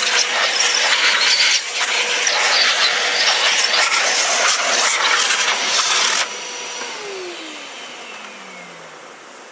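Construction vacuum cleaner running in blower mode, a loud rushing air jet used to blow bees out of a honey super. About six seconds in it is switched off, and the motor's whine falls in pitch as it spins down.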